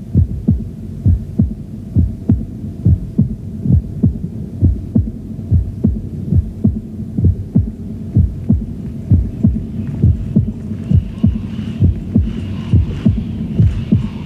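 Heartbeat sound effect: a steady, loud, low thumping pulse over a continuous low hum. Fainter higher sounds come in during the last few seconds.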